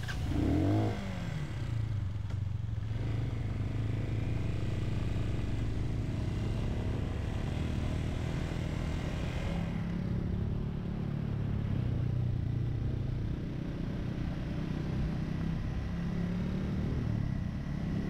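Motorcycle engine running at low, slightly varying speed as the bike rides along, heard from on board with road and wind noise.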